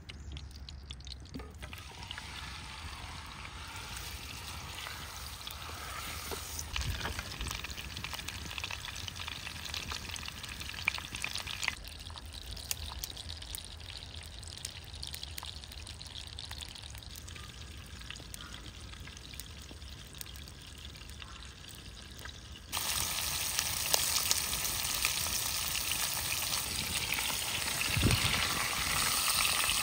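Food frying in hot oil in a pan: a steady sizzle with scattered crackles, which turns abruptly louder and brighter about three quarters of the way through.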